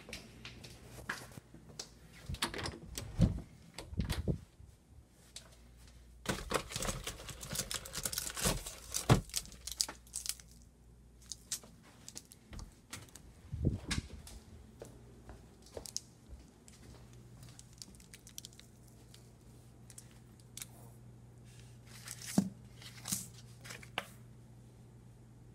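Irregular rustling, crinkling and light knocks, with a dense stretch of rustling about six seconds in, over a steady low hum.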